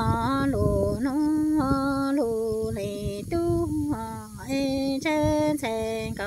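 A woman singing kwv txhiaj, Hmong sung poetry, unaccompanied. Long held notes step up and down between a few pitches, with short wavering turns between them, over a low rumbling noise.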